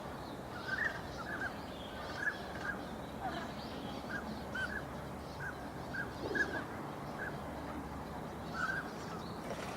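A flock of winter waterbirds calling: a dozen or so short, arching calls in quick, irregular succession over a steady background rush.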